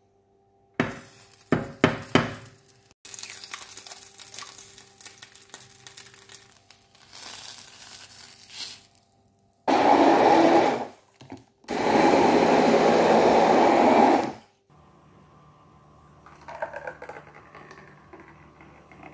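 A few sharp knocks near the start, an egg being cracked on a frying pan, then a hand-held immersion blender running in a glass of milky drink in two steady bursts, about a second and then about three seconds, the loudest sound here. Near the end, the drink is poured into a mug.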